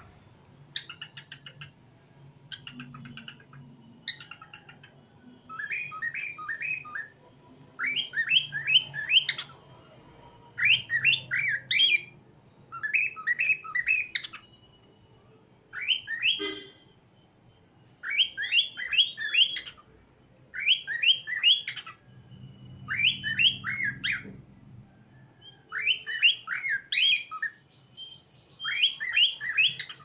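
Cockatiel singing: it starts with soft raspy chatter, then whistles a short phrase of three or four quick rising notes, repeated over and over about every two seconds.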